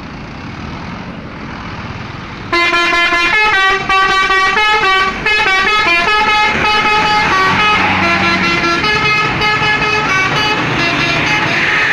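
Bus engine running, then about two and a half seconds in a Basuri telolet horn bursts in loudly, playing a fast tune of short stepping notes. Near the end the notes thin out under a louder rushing noise.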